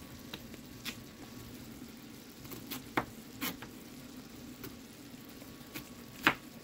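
An orange plastic knife cutting through zucchini and knocking on a plastic cutting board: a handful of sharp clicks, the loudest about three seconds in and near the end, over a faint steady hiss.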